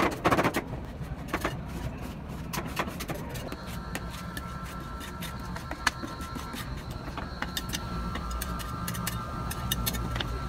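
Metal spatulas scraping, chopping and tapping on the steel cold plate of a rolled-ice-cream machine as ice-cream mix is spread and worked, in irregular sharp clicks over a steady low hum.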